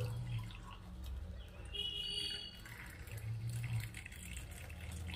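Hot spiced water poured in a thin stream from a steel saucepan into a glass tumbler, splashing as the glass fills, over a low steady hum.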